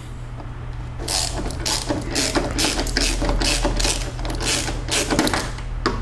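Hand ratchet turning a Torx T30 bit to pre-loosen a tight bolt, its pawl clicking in short bursts about twice a second as the handle is swung back and forth.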